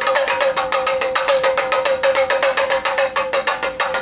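Toy pellet drum twirled back and forth, its beads striking the drumheads in a fast, even rattle of about nine strikes a second, each strike ringing with the same short tone.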